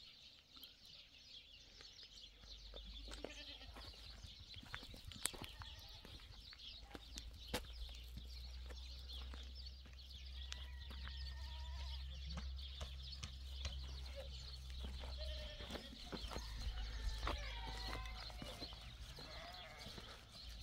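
Livestock bleating a few times, with footsteps crunching on a gravel and rubble path and a steady low wind rumble on the microphone.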